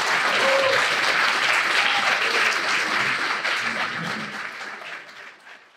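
Audience applauding, a dense patter of many hands with a few voices heard over it. The applause fades out over the last second or so.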